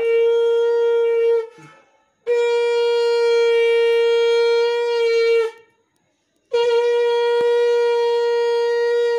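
Conch shell (shankha) blown in three long, steady blasts on one pitch. The first blast is short, and the second and third are longer.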